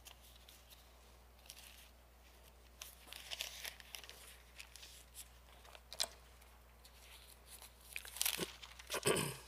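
Thin Bible pages rustling and crinkling faintly as they are leafed through, in short scattered rustles every second or two, the largest near the end.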